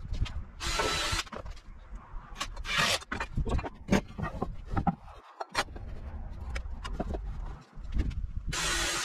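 Wooden battens knocked and shifted about on a workbench, with a few short rasping bursts: one about a second in, one around three seconds in and one near the end.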